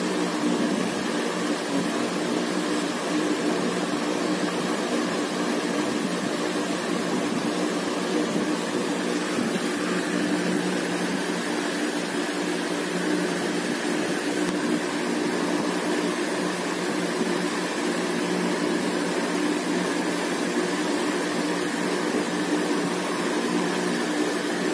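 A steady mechanical hum with a hiss over it, level and unchanging, with a few even low tones in it.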